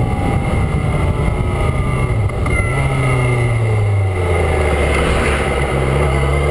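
Yamaha XJ6's inline-four engine, restricted to 34 hp, heard from the bike at speed with wind noise. About two and a half seconds in, the engine note comes through clearly and falls slowly as the revs drop, then rises again near the end.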